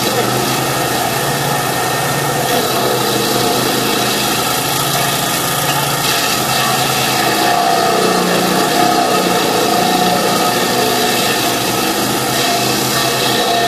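Engine of a Kanga mini loader with a stump grinder attachment running steadily, its pitch wavering slightly partway through.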